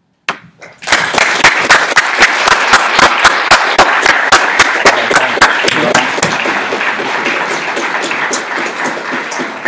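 An audience applauding. It starts about a second in, and one nearby pair of hands claps loudly over it at roughly four claps a second. Those close claps drop out about six seconds in, and the applause eases off a little towards the end.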